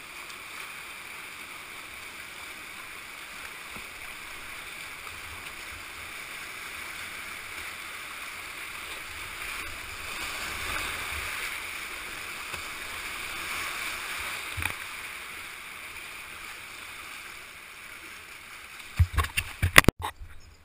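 Whitewater of a shallow river rapid rushing around a kayak in a steady hiss, swelling for a few seconds in the middle. Near the end a quick cluster of loud knocks as a hand handles the camera.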